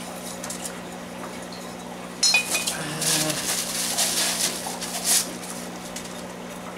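Ceramic cichlid stones knocking together once with a short clinking ring, followed by bubble wrap crinkling as a stone is unwrapped.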